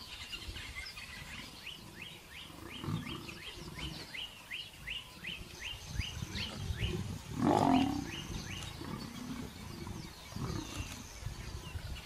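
Lions growling and snarling as a male lion and a lioness scuffle, with the loudest snarl about seven and a half seconds in. A high, short falling chirp repeats about three times a second through the first half.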